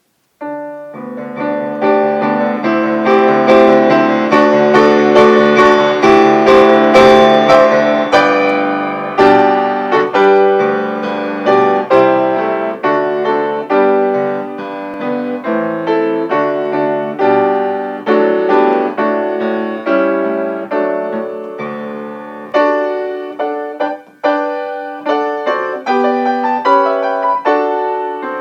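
Piano playing a postlude: full chords and runs of struck notes that ring and fade, growing more detached and rhythmic near the end.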